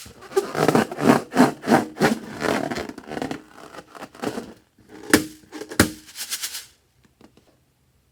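Slime being squished and worked by hand: a dense run of rapid crackles and pops, with two sharper, louder pops about five and six seconds in, stopping about a second before the end.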